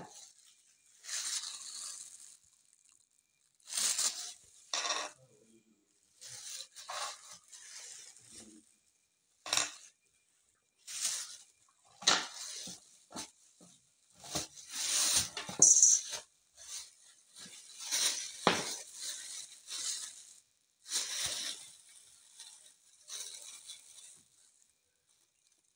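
Clear plastic bags over the hands rustling and crinkling in bursts as they handle things on a tabletop, with a few sharp taps on the table and scale.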